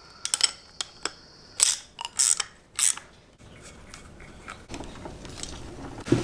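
Metal hand tools clicking and clinking while a fuel fitting is tightened into an Airdog diesel lift pump. After a few light clicks come three short, sharp rasps, each under half a second, typical of a ratchet being worked.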